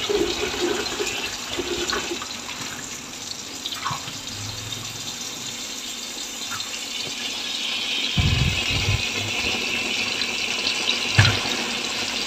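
Tap water running into a stainless steel sink and splashing over Chinese chives held in a plastic colander as they are rinsed by hand. A few dull knocks sound in the second half.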